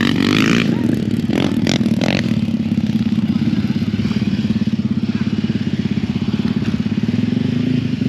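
An off-road vehicle's engine idling steadily close by, with an even, rapid pulse and no revving.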